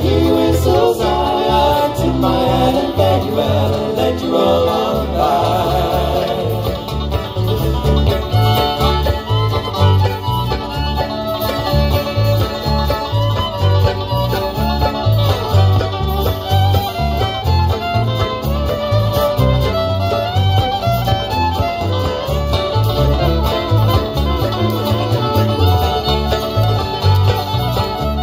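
Live bluegrass band playing an instrumental break with no vocals: bowed fiddle, picked banjo, mandolin and acoustic guitar over electric bass and drums, with a steady beat.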